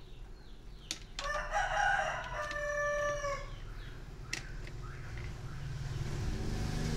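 A rooster crowing once, a single long call of about two seconds, with a few sharp clicks around it and a low hum building near the end.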